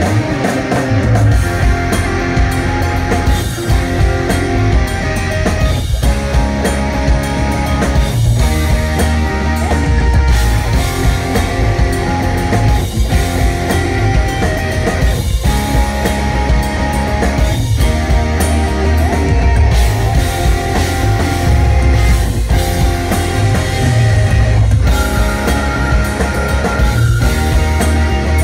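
A live instrumental post-rock band playing loudly and steadily, with layered electric guitars over bass and a drum kit.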